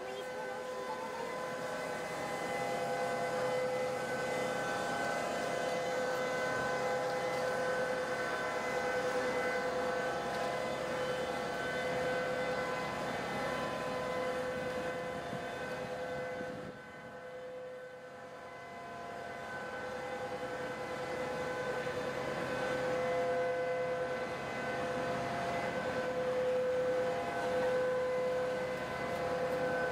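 Background music: a sustained drone of several steady tones held together, some fading in and out, with a brief dip a little past halfway.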